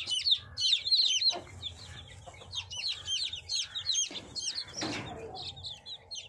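Newly hatched chicks peeping: a fast, continuous run of short, high chirps from several chicks at once, with a brief scuffling noise about five seconds in.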